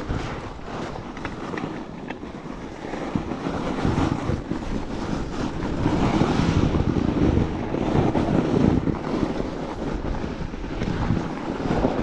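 Wind buffeting the action camera's microphone over the rolling noise of a fatbike's wide tyres on packed snow, louder from about four seconds in.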